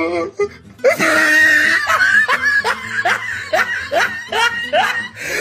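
Laughter: a long run of repeated 'ha' bursts, about two to three a second, starting about a second in.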